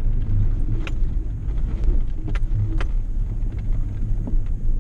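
Pickup truck driving slowly along a bumpy dirt trail, heard from inside the cab: a steady low engine and tyre rumble, with three sharp clicks or knocks, about a second in and twice around the middle.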